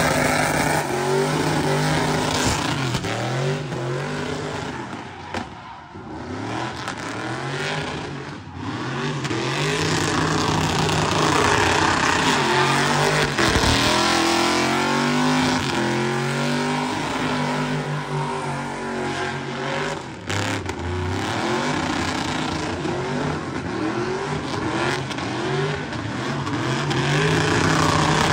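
Chevrolet Silverado pickup's engine revved hard and held at high rpm, its pitch climbing and falling back about once a second, while the rear tyres spin and squeal in a smoky burnout.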